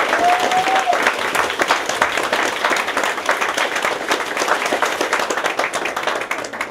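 Audience applauding: dense, steady clapping from a small crowd.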